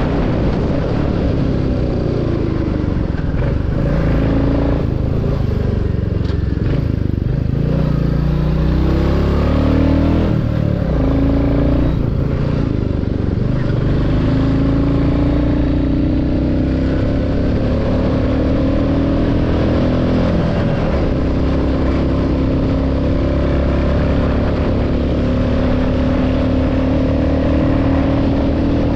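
Royal Enfield Classic 350's single-cylinder engine and exhaust while riding, a bike with about 35,000 km on it. The engine note falls and rises several times in the first half, then holds fairly steady.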